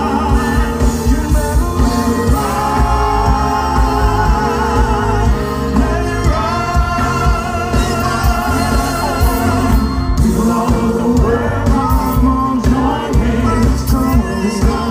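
Live soul band performance: a male lead singer with backing vocalists over electric guitars, keyboards and drums, with a steady beat.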